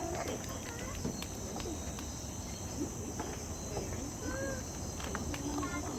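Steady high-pitched chorus of crickets, with faint scattered voices and a few light clicks.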